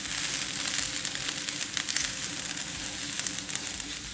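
Sliced mushrooms and onion rings frying in oil on a hot flat-top griddle (plancha): a steady sizzling hiss with small crackles.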